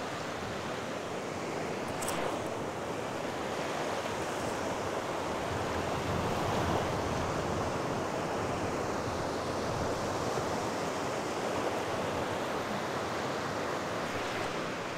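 Sea waves washing onto the shore, with wind buffeting the microphone. The surf noise swells gently toward the middle and eases off again.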